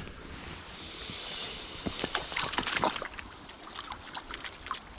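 A hooked grayling splashing and sloshing at the surface of a small stream pool as it is played toward the net. Scattered sharp clicks, busiest in the middle, run over a steady wash of water.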